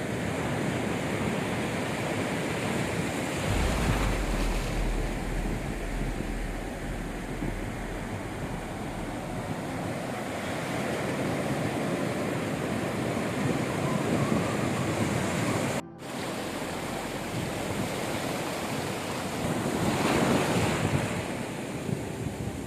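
Sea waves breaking and washing on a beach, surging louder a couple of times, with wind buffeting the microphone. The sound cuts out briefly about two-thirds of the way through.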